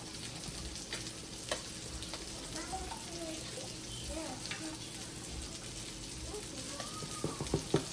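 Chicken pieces frying in oil in a skillet, a steady sizzle, with a few light clicks near the end.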